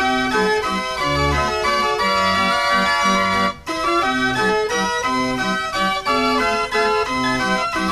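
Carousel band organ playing a tune with an oom-pah bass of low notes alternating with chords, broken by a short gap about three and a half seconds in.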